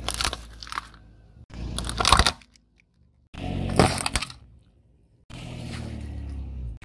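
A car tyre rolling over and crushing small objects one after another, including a bundle of plastic drinking straws: about four short stretches of sharp crunching and cracking, split by brief silences, the last one a steadier rumble.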